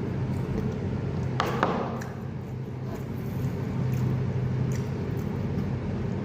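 Eating sounds: a few short wet, squishy mouth and food noises and light clicks, the strongest about a second and a half in, over a steady low hum.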